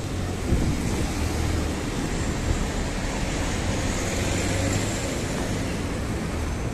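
Steady road traffic noise: a vehicle running nearby, with a constant low hum under a wash of street noise.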